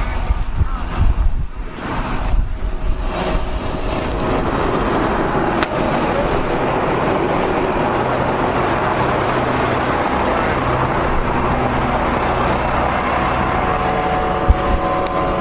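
Snowplow truck running along a road: uneven low rumbling for the first few seconds, then a steady, even rush of noise with an engine hum under it, and one sharp knock near the end.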